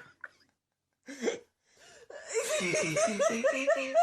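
A brief voiced sound about a second in, then a quick run of pitched, wavering vocal sounds pulsing several times a second over the last two seconds, rising in pitch at the end.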